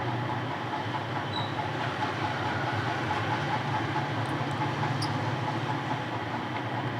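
Steady low hum with an even hiss, like a machine running, with a few faint high ticks about four to five seconds in.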